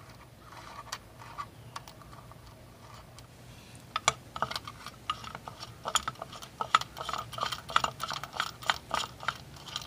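Small metal nuts and washers clicking and clinking as they are spun off the clutch spring bolts by hand. There are a few light clicks at first, then from about four seconds in a quick, uneven run of ticks.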